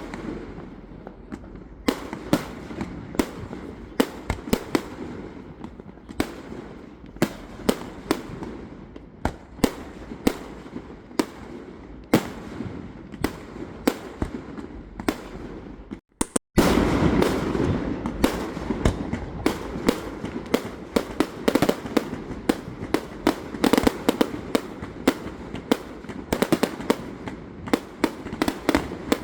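Fireworks display: an irregular stream of sharp bangs and cracks over a continuous rumble of bursts. The sound cuts out completely for a moment a little past halfway, then returns louder, with the bangs coming thicker.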